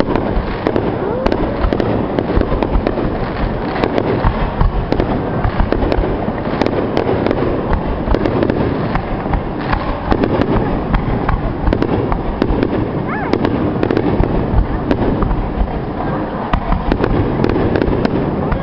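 Aerial firework shells bursting in quick succession, a continuous barrage of booms with many sharp cracks and crackles over a low rumble.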